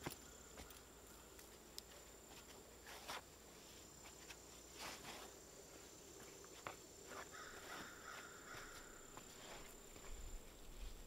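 A faint, steady, high insect buzz, with irregular soft thuds and scrapes every second or so as loose soil is tamped around a wooden post with the handle end of a shovel.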